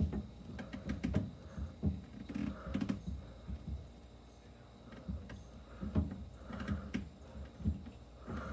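Irregular soft knocks, clicks and rustling from a person shifting about inside a refrigerator, with a quieter pause in the middle.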